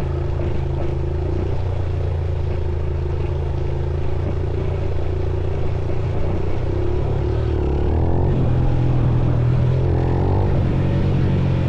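Motorcycle engine running steadily as the bike is ridden, its note shifting about eight seconds in.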